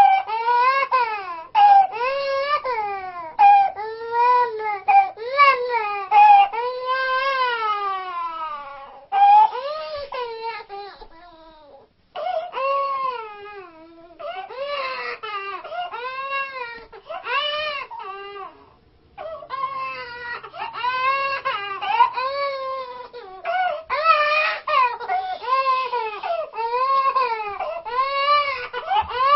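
Toddler girl crying in a steady string of rising-and-falling wails, breaking off briefly about eleven and again about eighteen seconds in.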